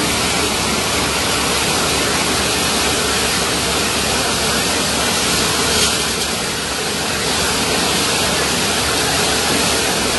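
Rushing floodwater: a loud, steady rush of noise.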